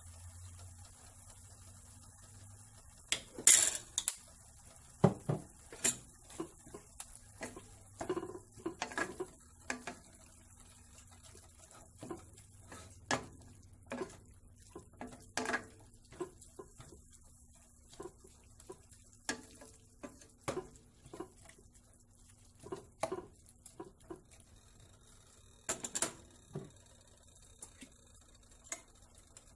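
Wooden spatula knocking and scraping against a stainless steel saucepan while ground pork is stirred, in irregular clatters, loudest a few seconds in and again near the end. A faint steady hum lies underneath.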